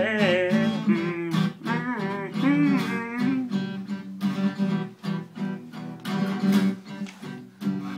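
Acoustic guitar strummed steadily. A voice sings a wordless melody over it for the first three seconds or so, then the guitar carries on alone.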